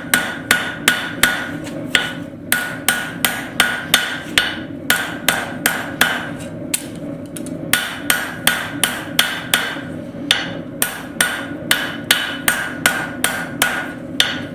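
Hand hammer striking hot steel on an anvil, drawing a tong rein out to a straight taper: steady blows about two to three a second, each with a metallic ring, broken by a few short pauses. A steady low hum runs underneath.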